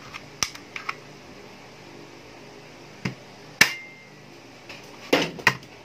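Handling noise on a workbench: scattered sharp clicks and knocks as objects are picked up and set down. The sharpest comes a little past halfway, with a brief ring, and a short clatter of knocks follows near the end.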